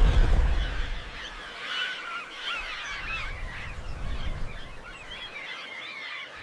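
A flock of birds calling over one another, many short wavering calls overlapping, with a deep rumble that fades away within the first second or so.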